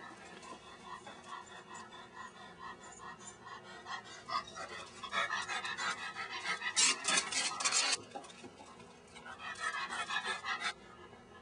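A Cavalier King Charles spaniel panting in quick short breaths. The panting grows louder for a few seconds from about the middle, stops abruptly, and comes back loud briefly near the end.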